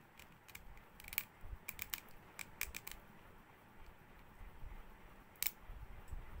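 Small plastic ink bottle and its cap handled in the fingers: a run of light clicks and taps from about a second in, then one sharper click near the end.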